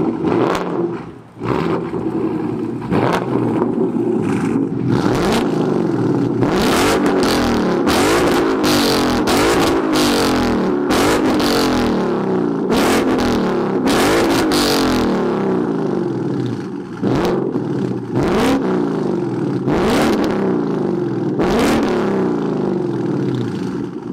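2016 Ford Mustang GT's 5.0-litre V8 through an H-pipe exhaust, revved loudly in over a dozen quick blips, each rising and falling back toward idle.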